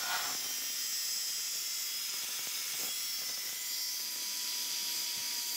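Angle grinder with a thin cutting disc running at speed and cutting into the steel shell of an air-conditioner compressor. It makes a steady high hiss over a constant motor whine.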